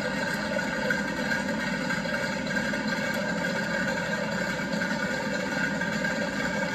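Recorded aircraft engine idling steadily, played by a toy pedal plane's built-in sound system.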